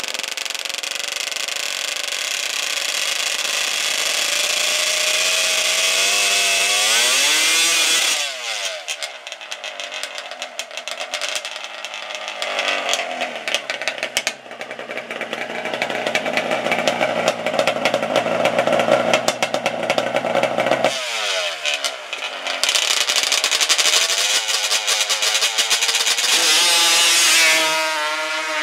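Two-stroke drag-racing quad engines (Yamaha Banshee twins on expansion chambers) revving hard again and again at the start line, the pitch climbing and falling with each blip. Near the end one quad launches with a long rising rev. The sound changes abruptly about 8 s and 21 s in, where the video cuts between runs.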